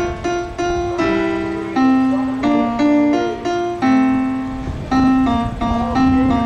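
Piano played solo: a simple melody of single notes, each struck and fading, with a steady low rumble of wind on the microphone underneath.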